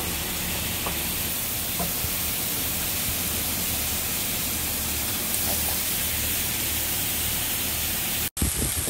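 Steady sizzling of meat frying, with a few faint clicks of metal kitchen tongs scraping chorizo from a pan into a larger pot. The sound cuts out abruptly for a moment near the end.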